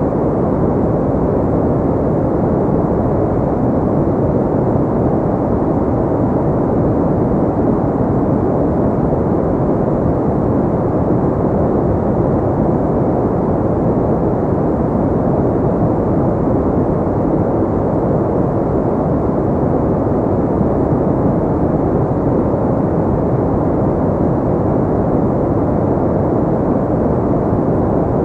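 Steady synthetic pink noise: an even, unchanging hiss-like rush weighted toward the low end, with little above the upper mids.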